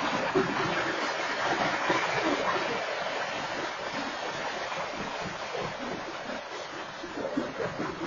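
Freight train cars rolling past on the rails: a steady rushing noise of wheels on track that slowly fades.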